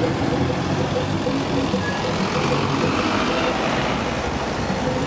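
City street traffic: motor vehicles running, a steady engine rumble with road noise.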